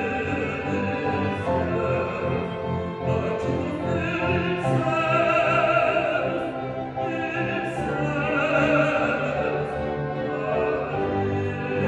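Opera singing: a male soloist sings held notes with vibrato in classical style, with instrumental accompaniment beneath.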